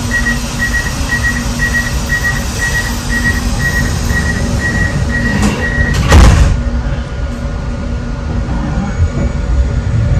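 Bozankaya tram's door-closing warning beeping steadily, about three beeps a second, for about six seconds, then the sliding doors shutting with a thud, with the standing tram's low electrical hum underneath.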